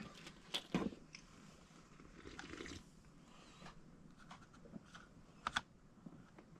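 Faint scattered clicks, taps and short scrapes from a paintbrush being worked in a paint pot and over a model volcano, with a couple of sharper taps about half a second in and again near the end.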